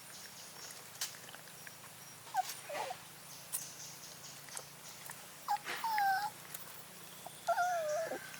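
Puppy whining: three short calls that bend in pitch, about two and a half, five and a half and seven and a half seconds in, the last two longer. Scattered light clicks and taps between them.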